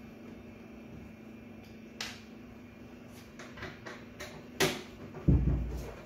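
A microwave oven's metal casing being handled and shifted on a workbench: a few sharp clicks and light taps, then a heavy low thump about five seconds in as the oven is pushed round on the bench.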